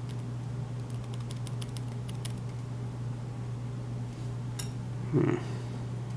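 Small metal tools clicking and tapping against a lock's parts while trying to free a stuck pin, with one short, louder knock about five seconds in, over a steady low hum.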